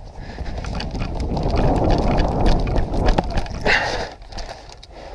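A player running over dry leaf litter and dirt: quick crunching footsteps that build up, are loudest in the middle, and ease off about four seconds in as the runner stops.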